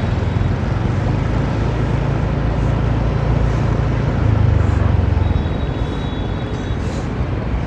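Vehicle engine running with road noise while driving along, a steady low rumble.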